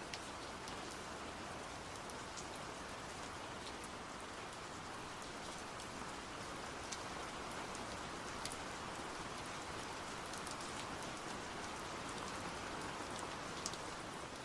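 Steady rain falling, an even hiss with scattered sharp drops ticking on a surface.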